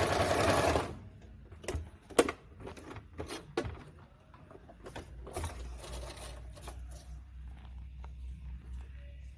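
Singer 2282 Tradition plastic-geared household sewing machine stitching fast through a thick stack of folded fabric layers, stopping about a second in. Then come scattered clicks and knocks as the machine and material are handled, with a low hum in the second half.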